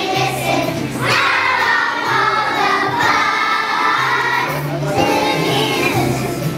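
A group of kindergarten children singing together with a piano or backing-track accompaniment.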